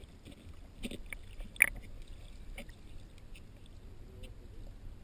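Muffled underwater noise picked up through a waterproof action-camera housing: a low steady rumble with scattered small clicks, and one sharp, loud click about one and a half seconds in.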